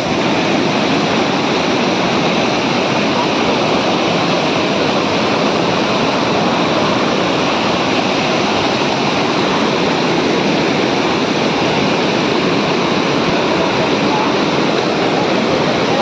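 Loud, steady rush of whitewater tumbling over rock ledges in a shallow river cascade at a waterfall.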